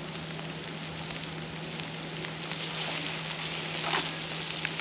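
Bone-in ribeye steak and foil-tray asparagus sizzling steadily over hot charcoal on the grill grate. About four seconds in, metal tongs rustle and tap in the aluminium foil as the asparagus is turned.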